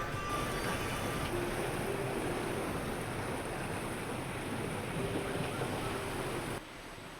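Steady rushing noise of wind on the microphone, which drops abruptly to a quieter background near the end.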